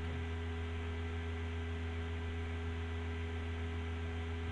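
Steady electrical mains hum with a faint hiss: the background noise of the recording's microphone chain, unchanging throughout.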